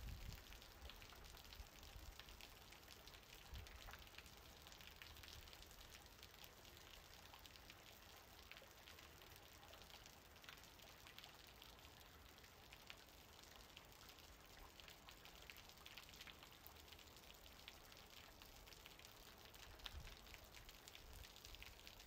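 Faint, steady rainfall with many single drops heard as sharp ticks. A brief low rumble comes at the very start, and a smaller one shortly before the end.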